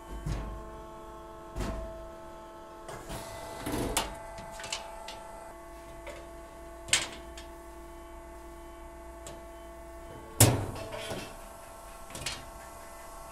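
A sheet-steel panel knocking and clanking on the table of a corner-notching machine as it is slid into the blades. There is a series of separate knocks, with the sharpest and loudest bang about ten seconds in.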